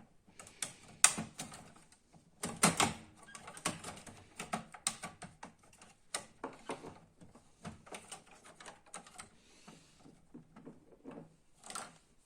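Irregular clicks, taps and knocks of plastic and metal printer parts being handled while the replacement 24 V DC main motor is set into its place in a Canon MF4410 printer's frame. The loudest knocks come about a second in and between two and three seconds in.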